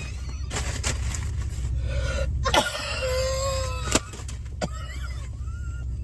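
Steady low rumble of a car's engine heard inside the cabin, with several short sharp sounds over it, the loudest about two and a half and four seconds in.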